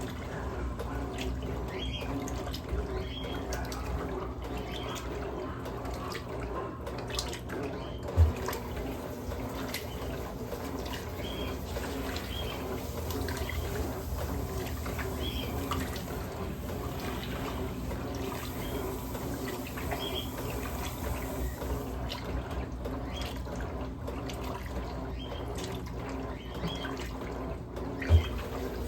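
Electrolux LM08A top-load washing machine running a load of towels, with water moving and splashing in the tub over a steady low hum. Two short low thumps come about 8 seconds in and again near the end.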